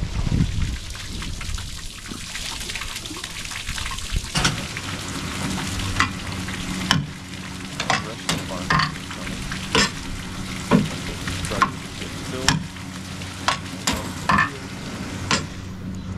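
Wet liquid manure pouring and splashing off a barn cleaner elevator chute into a manure spreader box, a steady sloppy splatter over a low machine hum. From about four seconds in, sharp splats or knocks come roughly once a second.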